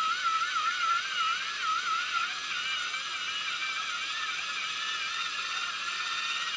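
Music from a small radio's speaker: a high melody line that wavers with a steady vibrato, thin and without bass.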